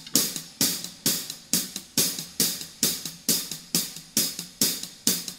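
A drum kit's cymbal or hi-hat struck on its own in steady time, about two hits a second, each ringing briefly: the drummer's count-in before the band comes in.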